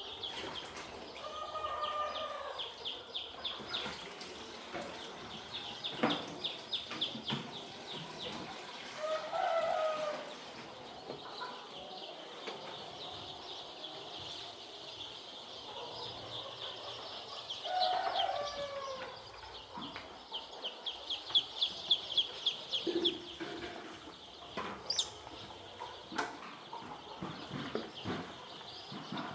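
A flock of young poultry chicks peeping continuously, a dense high chirping, with a few lower, longer calls now and then and some sharp knocks.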